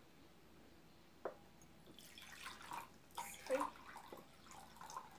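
Water being poured into a container, splashing and trickling for about three seconds from two seconds in, after a light knock a little over a second in.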